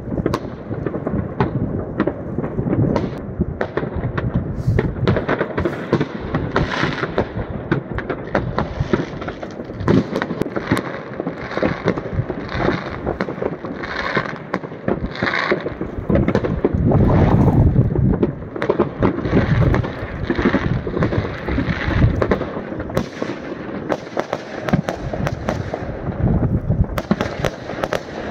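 Many fireworks going off around a neighbourhood at once: a continuous barrage of bangs and crackling that runs together into a rumble, loudest a little past halfway.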